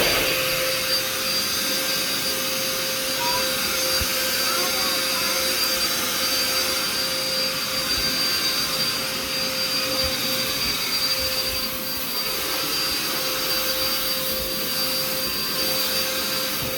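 Shark vacuum cleaner running steadily, its motor giving a constant rushing noise with a steady hum and a high whine over it; the machine is working properly.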